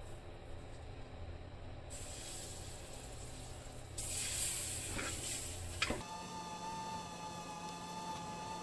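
Hot oil with turmeric sizzling in an iron frying pan. The hiss grows louder about four seconds in as peeled boiled eggs are dropped into the oil, with a couple of light knocks as they land and are pushed about with a wooden spatula.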